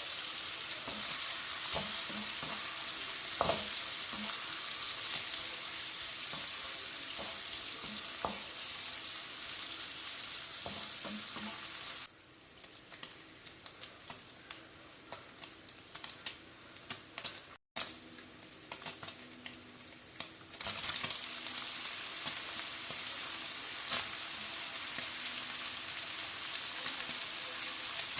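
Food sizzling in a frying pan while it is stirred, with the clicks and scrapes of a utensil against the pan. About halfway through the sizzle drops away for several seconds, leaving mostly the utensil's clicks, then comes back.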